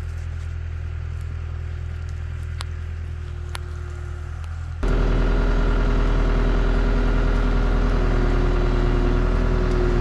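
Diesel engine of a CAT 252B skid steer running steadily under load, jumping abruptly to a louder, fuller engine sound about halfway through.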